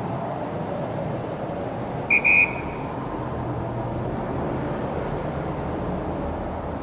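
City street traffic: a steady rumble of passing cars. About two seconds in come two quick high-pitched tones, the loudest sound here, which fade briefly after the second.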